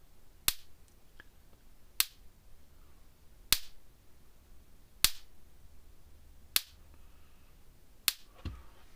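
Red Snap'r LI50 electric fence charger's high-voltage pulse sparking across a screwdriver laid over its terminals: six sharp snaps about a second and a half apart, one with each pulse. The regular, strong spark shows the charger is putting out a hot shock.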